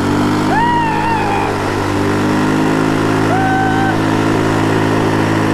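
Bajaj Pulsar 220's single-cylinder engine revving up and then held at steady high revs while its rear wheel spins in a shallow river, over the rush of spraying water. A couple of short, high, rising-and-falling calls sound over it.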